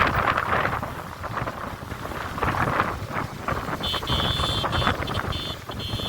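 Wind buffeting the microphone over the running noise of a moving vehicle. Near the end a high, steady tone sounds in several short stretches.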